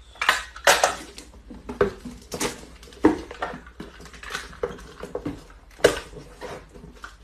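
Packing tape pulled off a handheld tape dispenser and pressed onto a cardboard box: a string of short, irregular rips, with the cardboard rustling and knocking between them.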